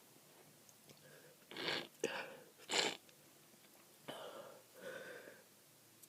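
Sneezing fit from a person with a snotty, stuffed-up head cold: about five short bursts of sniffs, gasping breaths and stifled sneezes.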